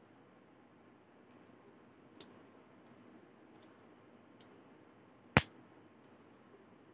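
Metal clicks from a stainless steel folding camping utensil multi-tool being handled: a small sharp click about two seconds in, a few faint ticks, then one loud sharp click a little past five seconds.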